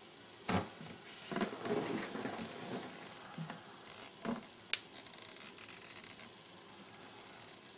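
Hands working thread around a fishing-rod guide close to the microphone: a few short scratching and rubbing noises, with a sharp click a little past the middle.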